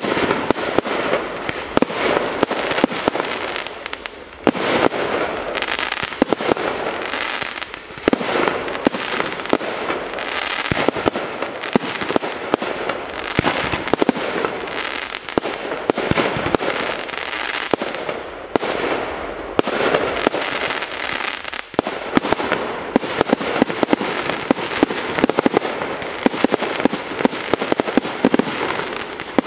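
Professional aerial fireworks in a continuous rapid barrage: many sharp bangs a second from shells launching and bursting, over a steady wash of crackle and rumble. The barrage eases briefly about four, eight and twenty-one seconds in.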